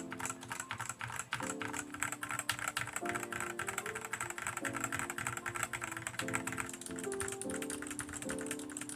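Fast typing on a Redragon Kumara mechanical keyboard fitted with Akko switches: a dense run of rapid key clicks and clacks, with background music playing under it.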